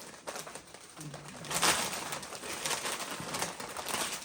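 Doritos tortilla chips being crunched and chewed with a full mouth, with a short low throaty hum or groan about a second in.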